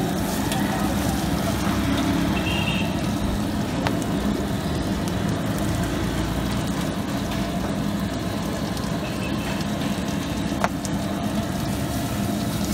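Large flat griddle with patties frying, giving a steady sizzle and the rush of the burner under the griddle, with two sharp metal clicks of a spatula against the steel, the louder one near the end.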